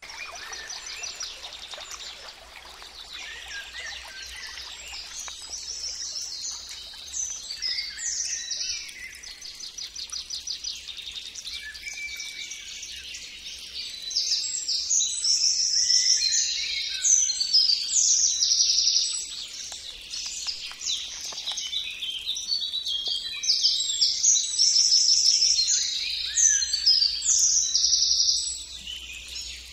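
Songbirds singing, several phrases overlapping, with rapid high trills and quick chirping notes; louder in the second half.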